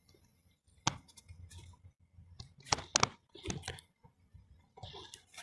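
A few faint clicks and taps, spaced irregularly; the sharpest comes about a second in, with a small cluster near the middle.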